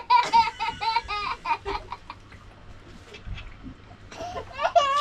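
A young child laughing and giggling in high-pitched peals, quieter for a couple of seconds in the middle and picking up again near the end.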